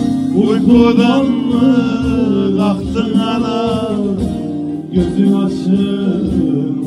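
A man singing live to the accompaniment of a strummed bağlama and an acoustic guitar; the sung line bends and wavers in pitch and fades out after about four and a half seconds, leaving the strings playing on.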